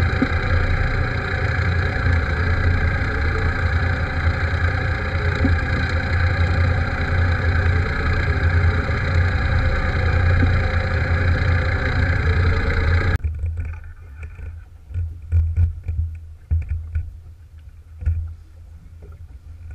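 Inboard engine of an Alberg 30 sailboat running steadily while the boat motors with its sails down, then cutting off abruptly about two-thirds of the way through. After that, uneven gusts of wind on the microphone and water rushing along the hull as the boat sails.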